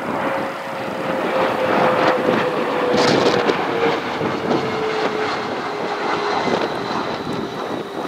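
Bombardier CRJ-100LR regional jet passing low on landing approach, its two rear-mounted GE CF34 turbofans giving a steady whine that falls slowly in pitch, over gusty wind buffeting the microphone.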